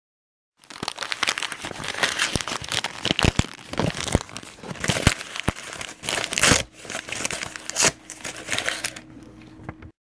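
Something being crumpled and crinkled: a dense, irregular run of crackles and sharp snaps that starts about half a second in and stops abruptly near the end.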